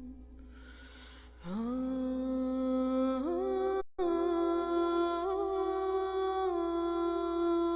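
Background music: a long held humming drone that slides up in pitch about a second and a half in, then steps higher and holds, over a steady low hum.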